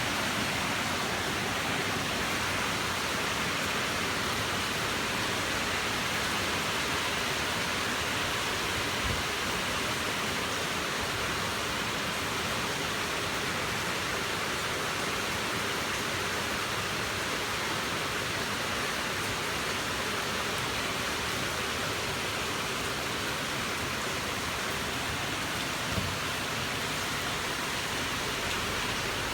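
Steady, even rushing noise with no rhythm or tone, with a brief soft thump about nine seconds in and another near the end.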